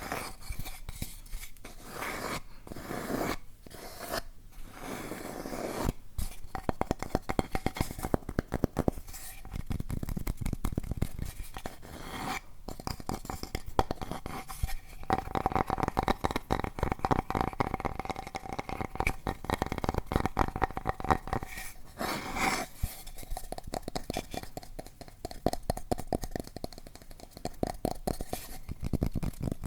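Close-miked ASMR trigger sounds: hands scratching and rubbing a crinkly object, making dense rapid crackles that come in spells with short pauses between them.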